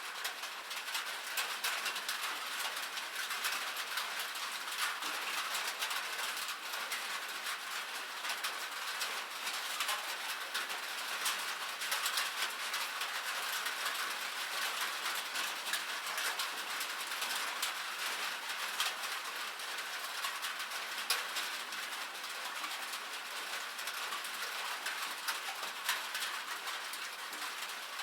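Steady rain falling on a cabin roof: a dense, even hiss of many fine drop patters.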